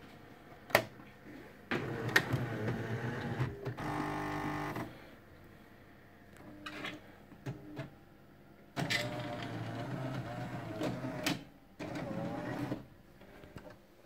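The pre-ground coffee flap of a Jura Giga X3 bean-to-cup coffee machine clicks shut, then the machine's motor and pump run in several bursts of one to three seconds as it works on a drink, with a hum that wavers in pitch in the later bursts.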